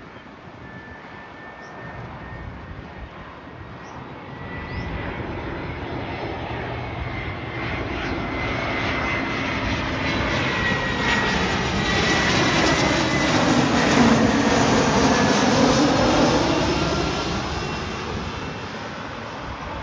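Jet airliner passing the airport's spotting point, its engines growing louder over about ten seconds with a thin steady whine, loudest about fourteen seconds in, then fading away.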